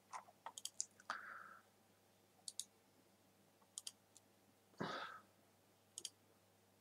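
Computer mouse clicks, very quiet: a few near the start, then quick double-clicks spaced about a second or more apart, with a brief soft noise about five seconds in.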